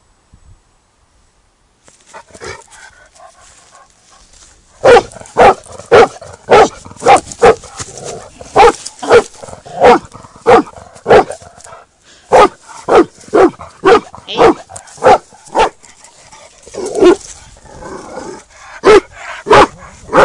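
A dog barking over and over, about two barks a second, starting about five seconds in with a short break near the middle.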